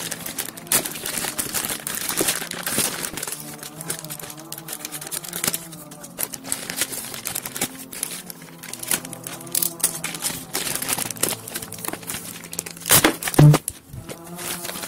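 Plastic poly mailer bag crinkling and rustling as it is handled and opened, over background music, with a loud knock near the end.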